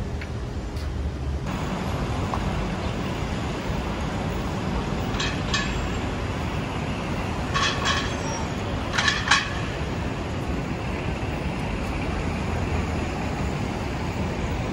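Busy city street traffic noise, a steady rumble and hiss, with a handful of brief, sharp high-pitched sounds clustered around the middle.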